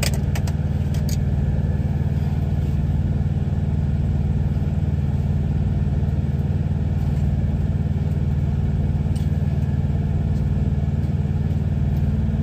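A truck's engine idling: a steady low rumble heard inside the cab. A few light clicks of utensils come in the first second.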